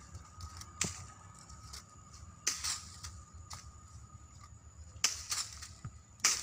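Dry fallen leaves crackling a few times, about four sharp crunches spaced irregularly, as a barefoot person steps and drags a long vine over the leaf litter. Faint steady high tones run underneath.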